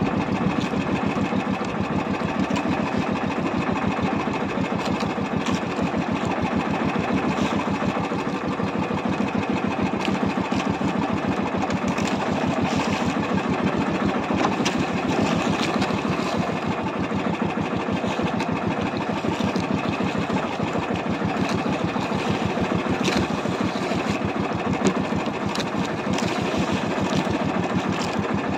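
The small engine of an outrigger fishing boat running steadily with a fast, even chug. A few light clicks and knocks sound over it.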